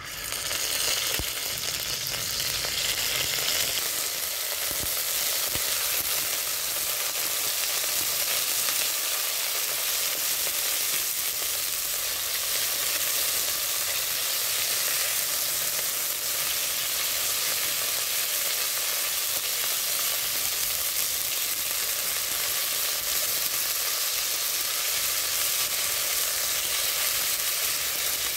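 Raw chicken pieces searing in hot oil in an enamelled cast-iron pot: a steady sizzle that starts as the first piece goes in and holds while more pieces are added and turned.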